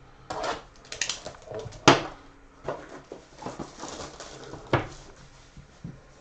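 Cardboard trading-card blaster box being handled and opened by hand: rustling and scraping, with a few sharp clicks, the loudest about two seconds in and another near five seconds.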